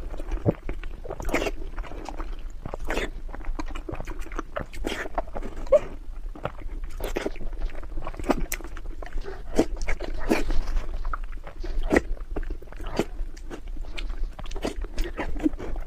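A cat chewing and crunching its food, with irregular crunches and wet smacks of the jaw several times a second.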